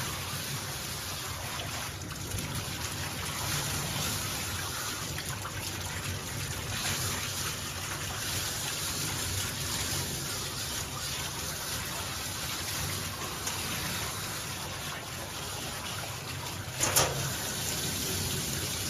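Water spraying steadily from a bathing hose onto a dog's wet coat, rinsing out the shampoo. A single sharp knock sounds near the end.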